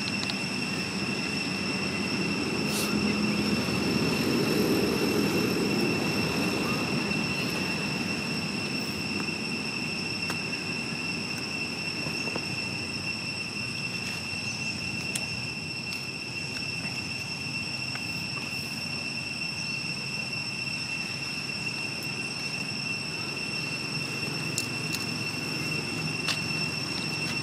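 Outdoor background noise: a steady low rumble that swells for a few seconds about three seconds in, under a steady high-pitched whine at two pitches.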